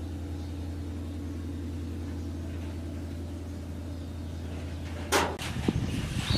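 A steady low mechanical hum that stops about five seconds in, right after a sharp knock, and gives way to louder, uneven rumbling noise.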